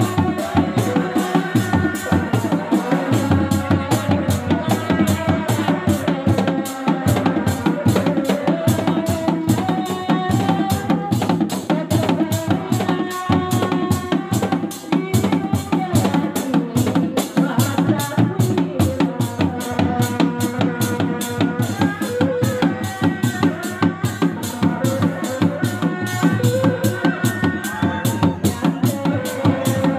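Reak ensemble playing: dog-dog frame drums beating a steady, fast, interlocking rhythm, with a wavering melody over the top.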